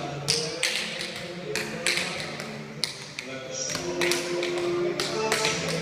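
Tap shoes striking a dance-studio floor in quick, uneven clusters of beats, over background music with sustained notes.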